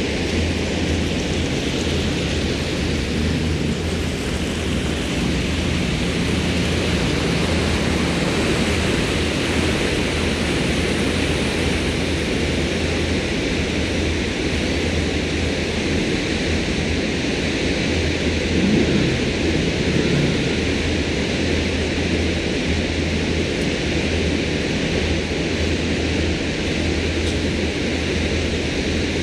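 A MerCruiser 7.4 L inboard engine drones steadily at slow cruise, under a steady rushing noise of wind and water at the bow.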